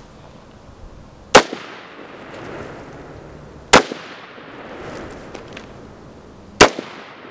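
AR-15 rifle fired three times, the shots about two and a half to three seconds apart, each a sharp crack followed by a fainter second crack and a short echo.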